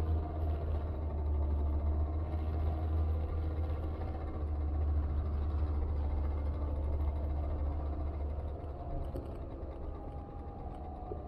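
Steady low engine rumble, fading away after about eight seconds.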